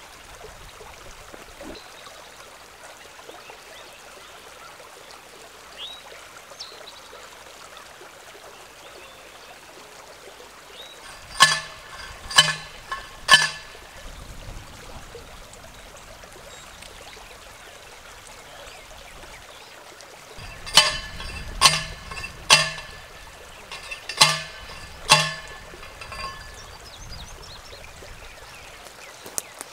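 Steel T-posts being driven into the ground with a T-post driver: sharp ringing metal clangs, three about a second apart near the middle, then five more a few seconds later. Under them runs the steady rush of a creek.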